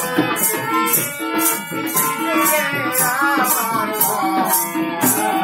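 Live Bengali folk music: a harmonium holds steady chords while a shaker rattles on the beat about twice a second, over hand drums. A wavering sung or melodic line rises and falls in the middle.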